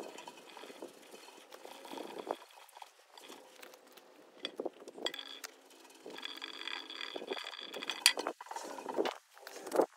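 Cloth rubbing and wiping over the oxidised painted sheet-metal body of a Venco No. 5 pottery wheel as it is polished, with scattered clicks and knocks, the sharpest near the end.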